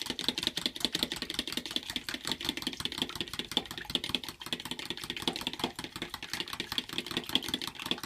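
Eggs being beaten into milk in a bowl: a fast, steady clatter of the utensil against the bowl.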